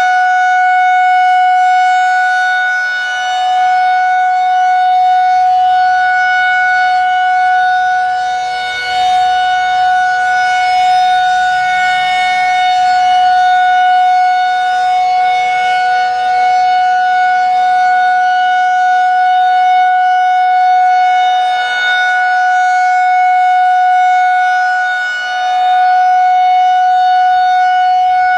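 Federal Signal 2001-130 electromechanical civil-defense siren sounding the Alert signal: one steady, unbroken tone with no rise or fall in pitch. Its loudness swells and dips every few seconds as the rotating siren head sweeps past.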